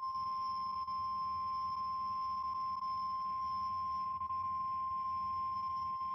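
NOAA Weather Radio warning alarm tone: a single steady high 1050 Hz tone that switches on abruptly and is held without change. It is the weekly test of the radio alarm tone feature.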